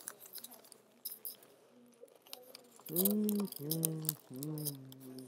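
A person chewing a big mouthful of sandwich, with small wet mouth clicks, then three short closed-mouth hums of enjoyment ("mmm") about three seconds in.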